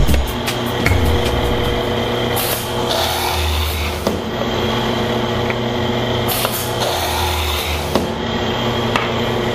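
Kreg DK3100 pocket-hole machine's electric motor running with a steady hum while its air-driven clamp and drill-stroke cylinders go through two drilling cycles. Each cycle has a sharp hiss of exhausting air, one about two and a half seconds in and another about six and a half seconds in, followed by a low heavy stretch of the drill stroke. Short clicks come in between.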